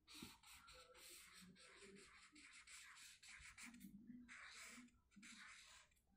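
A felt-tip marker scratching across paper in quick strokes as letters are written, faint, with short pauses between strokes.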